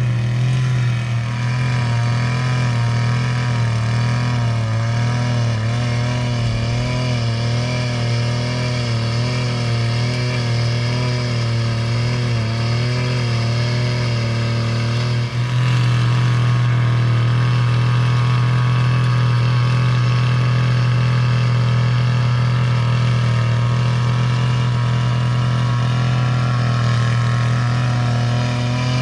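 Small two-stroke Earthquake mini cultivator engine running continuously while tilling garden soil, its pitch wavering with the load in the first half. About halfway through it dips briefly, then runs steadier and a little louder.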